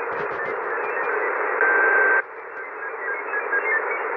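Icom IC-M802 marine HF transceiver's receiver audio as it is tuned across the 20-metre band: a steady hiss with short whistles that jump from pitch to pitch, and a louder steady whistle for about half a second midway. A few clicks sound right at the start.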